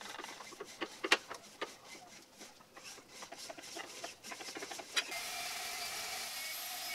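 Quarter-inch pipe tap turned by hand in a drill press chuck, cutting threads in a steel strap: irregular clicks and creaks of the tap biting into the metal. About five seconds in, a small band saw starts cutting through the steel strap with a steady whine.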